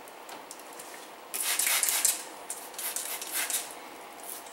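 A hand trigger spray bottle misting slip solution onto freshly laid paint protection film on a car bumper. It gives one hissing spray of about a second, then several shorter squirts.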